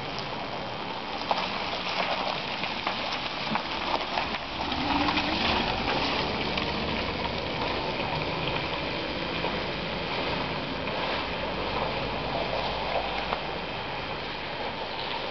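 Tyres hissing and crackling through wet slush and puddles as a car moves slowly along the street.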